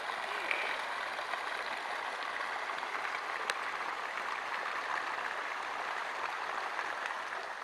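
Steady rush of splashing water, even and unbroken, with a couple of faint sharp ticks.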